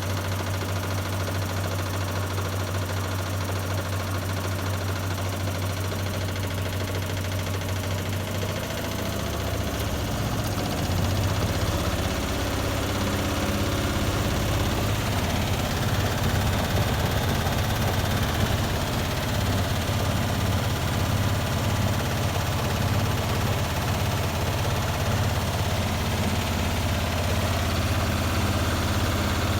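Hotpoint WMA30 washing machine running with an unbalanced load: a steady low motor hum from the drum, turning louder and rougher about nine seconds in and staying that way, with rumbling and vibration of the cabinet.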